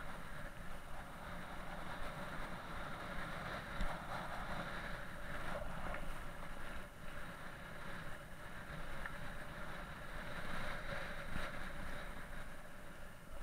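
Mountain bike rolling along a tarmac lane: wind buffeting the microphone over steady tyre and road rumble, with a few short knocks and rattles from the bike, the sharpest about four seconds in.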